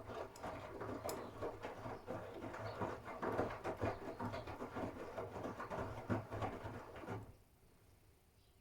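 Miele W1 front-loading washing machine's drum turning during the wash, wet laundry and water splashing and thudding in an irregular patter. The drum stops about seven seconds in.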